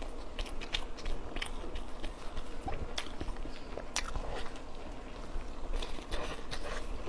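A person chewing and biting into a stuffed steamed bun (baozi): irregular wet mouth clicks and smacks over steady chewing.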